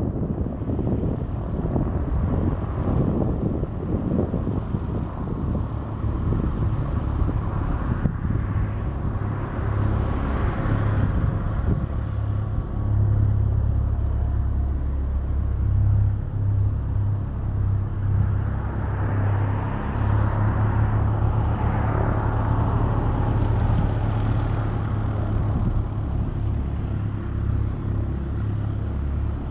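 Piston engines of propeller-driven light aircraft running at low power on the ground as they taxi: a steady low drone that swells about ten seconds in and again around twenty seconds in.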